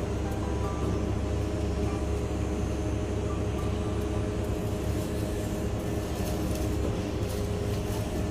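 Steady low rumble and hum of supermarket background noise, with faint steady tones over it: refrigerated produce cases and ventilation.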